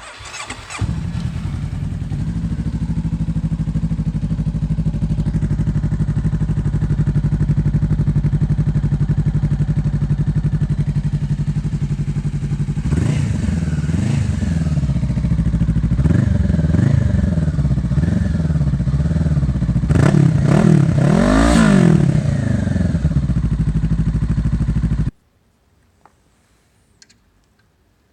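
Honda CB500F's parallel-twin engine breathing through an IXIL aftermarket exhaust: it starts up and idles steadily. About halfway through it is revved in a series of throttle blips, the highest near the end, then it is switched off abruptly a few seconds before the end.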